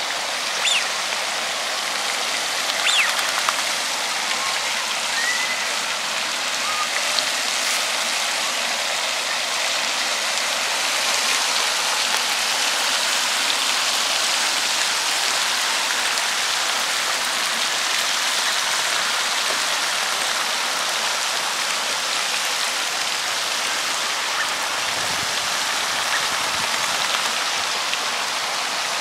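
Steady hiss and splash of water from a pond fountain.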